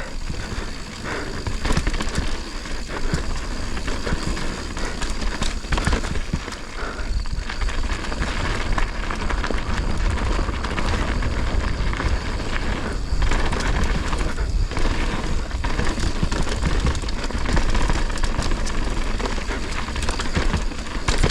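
Mountain bike descending a rough, rocky trail: a steady crackle of tyres over dirt and stones, with frequent small knocks and rattles from the bike, and wind rumbling on the microphone.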